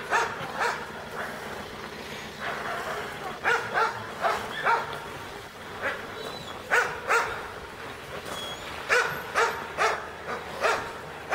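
A dog barking repeatedly in short barks, often two in quick succession, every second or so.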